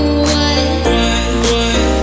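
Background music with held chords, a stepping bass line and a beat.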